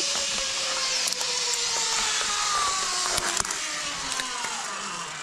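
Zip-line trolley rolling down a steel cable: a steady rush of wind and cable noise, with a pulley whine that falls slowly in pitch as the trolley slows.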